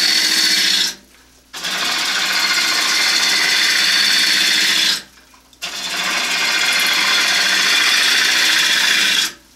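A bowl gouge with a 40/40 grind taking a pull cut on a wooden bowl blank spinning on an electric lathe at about 1,000 rpm. The shavings peel off with a loud, steady shearing hiss. The hiss breaks off briefly about a second in, again about halfway, and once more near the end as the tool comes off the wood, and the lathe's low hum shows through in each pause.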